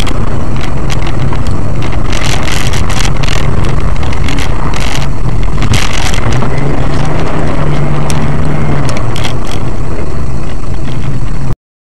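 Loud, distorted vehicle noise, steady and overloading the microphone, that cuts off abruptly near the end.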